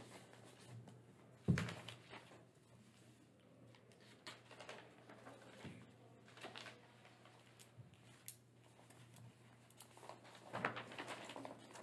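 Quiet meeting-room tone with a steady low hum, broken by one sharp knock about a second and a half in and scattered small clicks and paper rustling from papers being handled at the table.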